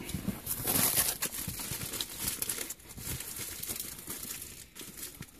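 Rustling and crinkling handling noise with scattered light clicks, strongest about a second in.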